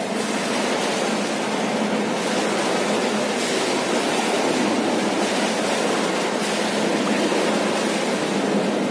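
Steady rush of choppy, churning swimming-pool water, with a steady low hum underneath.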